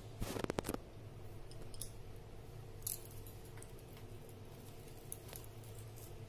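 Fingers picking chopped vegetables off a steel plate and scattering them onto an egg-coated flatbread: a quick cluster of small clicks and rustles in the first second, then a few scattered ticks. A steady low hum runs underneath.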